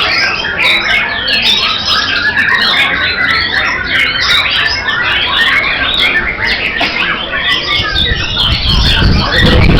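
Several white-rumped shamas singing at once in a dense, unbroken chorus of overlapping whistles and chatter. A low rumble builds in underneath near the end.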